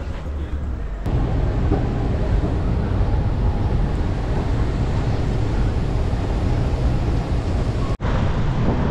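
Wind rumbling on the microphone over city street noise, a steady rushing haze that gets louder about a second in and cuts out briefly near the end.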